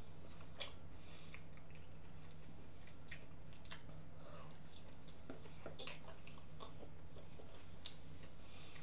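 A person eating from a bowl with a spoon: chewing, with scattered short clicks of the spoon against the bowl, the sharpest near the end. A steady low hum runs underneath.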